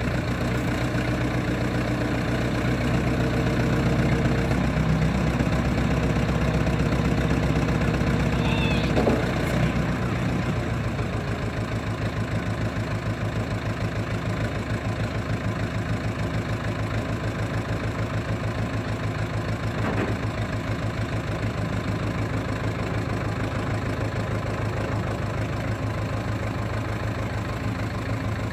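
Ostrówek backhoe loader's diesel engine running with a whine over it while the backhoe arm is worked, then dropping back to a steady idle about ten seconds in.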